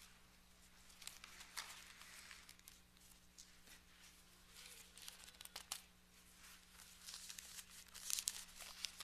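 Faint rustling of thin Bible pages being leafed through to find a passage, a string of short crinkly page turns with the loudest flurry near the end.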